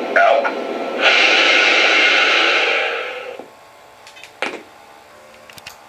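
A burst of hiss from a Lionel SD70ACe model locomotive's electronic sound system, lasting about two seconds and fading away, followed by a single click.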